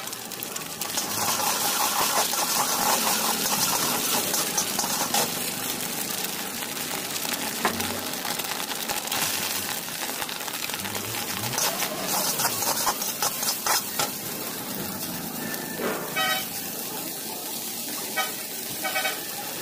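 Food sizzling in a hot wok while a metal spatula scrapes and tosses it, a steady hiss broken by frequent scrapes and clicks as egg and shredded vegetables and chicken are stir-fried.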